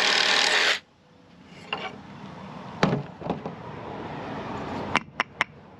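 A tool rasping across hardwood in one long stroke that stops about a second in, followed by a few light knocks and three quick sharp clicks near the end.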